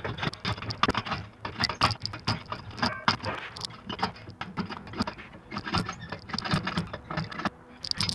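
Irregular metallic clanks, knocks and rattles as a sheet-metal brake hanging in lifting slings from an engine hoist is handled and moved.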